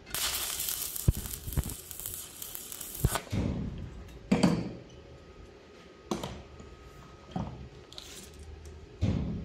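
Stick (arc) welding tacking a steel angle: the arc crackles and hisses for about three seconds, then stops. A few sharp metal knocks follow, spaced a second or two apart.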